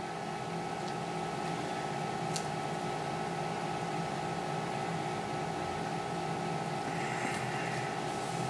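Steady machine hum made of several steady tones, like a running fan or air handler, with a single faint click about two and a half seconds in and a light rustle near the end.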